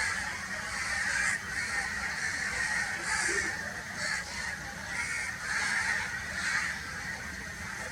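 Crows cawing repeatedly, about one call a second.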